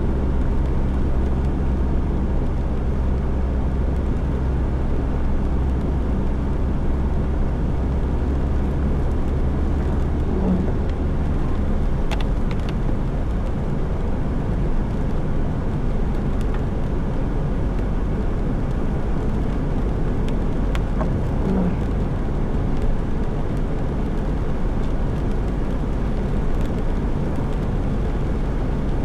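Car driving, with steady engine hum and road noise. The engine's low hum drops away about twelve seconds in.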